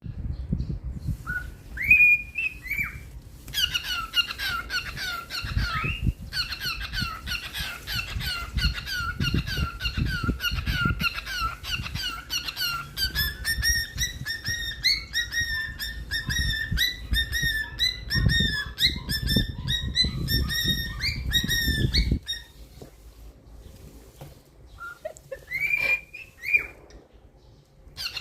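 Cockatiel whistling and chattering: a few whistled notes, then long runs of rapid, repeated chirps, then a couple more whistled notes near the end. A low rumble runs under the chirping and stops about two-thirds of the way through.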